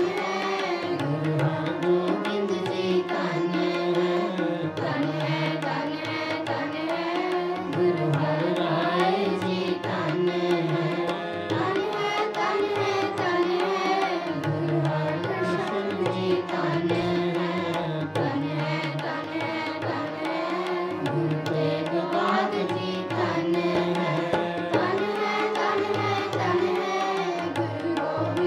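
Sikh kirtan: a shabad sung to harmonium, the voice wavering over the harmonium's steady held notes, with tabla keeping up a continuous rhythm.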